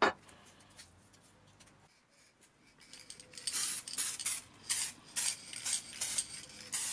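A metal ring is set down on a wooden workbench with one sharp clack. About three seconds in, an aerosol spray can of lacquer starts spraying in a run of short, uneven hissing bursts.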